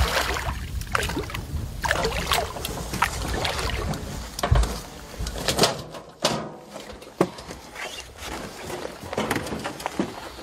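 Water splashing and sloshing in irregular bursts as a hooked king salmon thrashes at the surface beside the boat.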